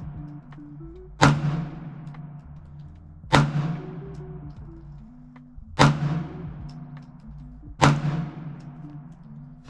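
Four single shots from a Bear Creek Arsenal Grizzly 101 9mm pistol, about two seconds apart, each followed by a short echoing tail: slow, aimed fire for accuracy testing.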